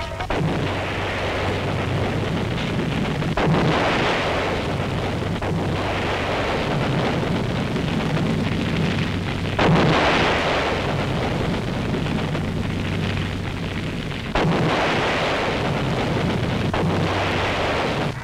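A series of explosions, as from shelling, each blast followed by a long rumbling roar. Fresh blasts come in sharply about three and a half, ten and fourteen seconds in, over a steady low hum.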